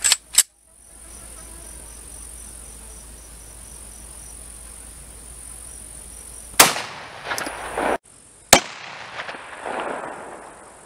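Beretta APX compact 9mm pistol firing: a sharp shot about two-thirds of the way in, and another sharp shot about two seconds later. Faint, regular insect chirping is heard before the shots.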